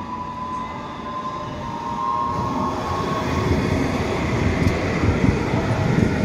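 Tram running on its rails close by, its rumble growing steadily louder, with a thin high tone over it in the first few seconds.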